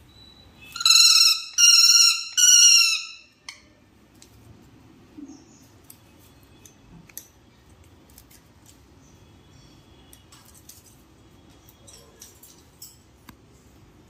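Pet parrot giving three loud, shrill screeches in quick succession about a second in, the last slightly longer and falling a little in pitch. Faint scattered clicks follow.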